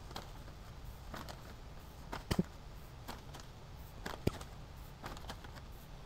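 A measuring cup scooping vermiculite from its bag and pouring it: faint rustling with a few scattered light clicks and taps, the sharpest about two seconds in and again about four seconds in.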